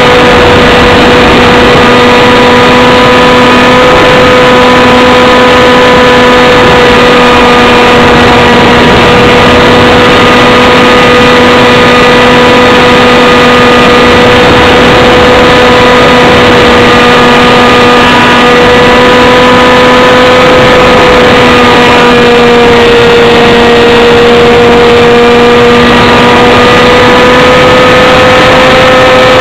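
Model plane's motor and propeller running at a steady, loud whine, close to the onboard microphone, with wind rush over it. The pitch dips slightly for a few seconds after the middle, then rises back.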